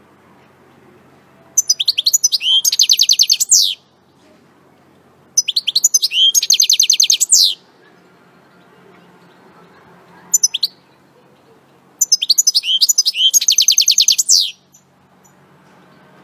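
European goldfinch singing: three song phrases about two seconds long, each a fast run of high twittering notes ending in a falling note, with a short call between the second and third.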